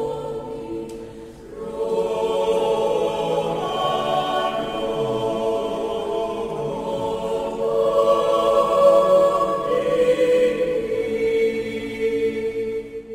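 Mixed choir of women and men singing a cappella: a slow, gentle melody in several voice parts. It dips briefly between phrases about a second and a half in, swells louder past the middle, and fades away at the end of a phrase.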